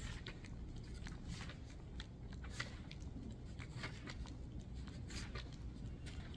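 Footsteps on a hard, polished floor: irregular sharp clicks over a steady low rumble.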